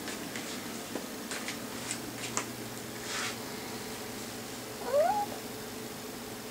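Calico kitten giving one short meow that rises in pitch, about five seconds in. A few faint clicks and a brief rustle come before it.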